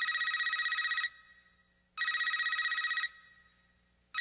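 Telephone ringing: a rapid trilling ring about a second long, sounded twice two seconds apart, with a third ring starting near the end.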